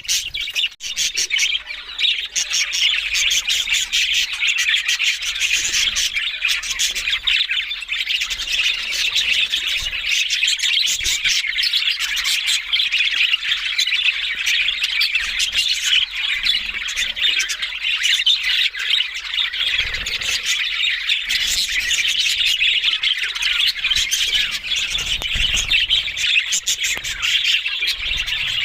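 Budgerigars chattering and chirping in a dense, unbroken twitter.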